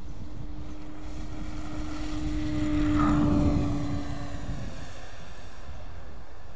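Calmato Alpha 40 RC trainer plane's motor and propeller running on takeoff: one steady drone that swells as the plane lifts off and passes closest about three seconds in, then fades out as it climbs away.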